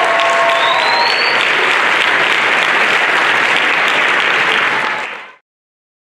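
Audience applauding a choir performance, with a couple of held cheers at the start and a short rising whistle about a second in. The applause fades out abruptly a little after five seconds.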